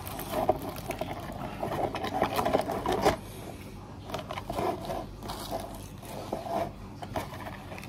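A person eating noodles close to the microphone: irregular chewing and slurping with scraping sounds and a few sharp clicks, the sharpest about three seconds in.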